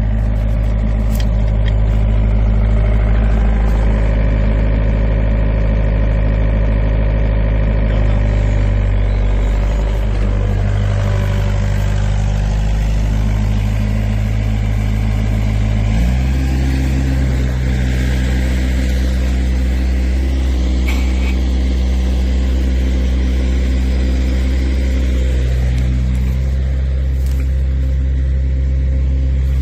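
Volvo EC55C mini excavator's diesel engine running steadily, its pitch stepping to a new steady note about halfway through.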